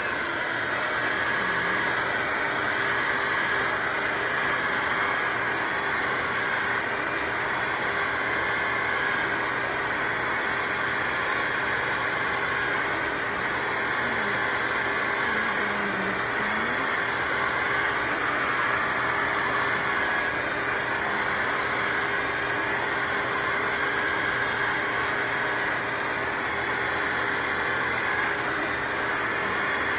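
Shark HydroVac MessMaster wet-dry vacuum mop running steadily in stain-boost mode: an even motor and suction noise with a constant hum.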